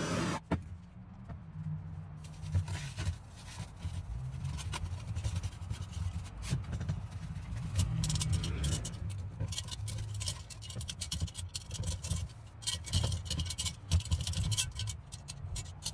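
Cloth rag rubbing and scraping around the inside and rim of a cast iron Dutch oven, with small knocks and clicks as the hands work. A propane torch hisses at the very start and cuts off about half a second in.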